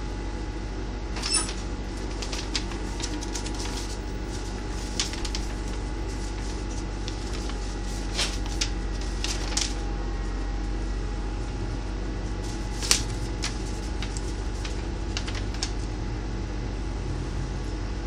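Interior of a Skoda trolleybus: a steady electric hum with a low drone and a faint high whine, broken by scattered sharp clicks and rattles from the body and fittings. The loudest click comes about two-thirds of the way through.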